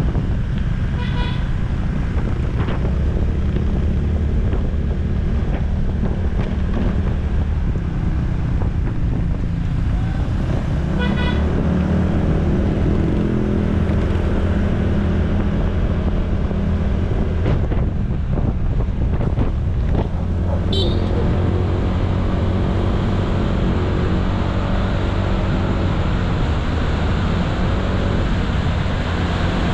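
Honda ADV160 scooter's single-cylinder engine running steadily while riding, its pitch shifting a few times with speed, under wind and road noise on the microphone. A short horn beep comes about a second in and again about eleven seconds in.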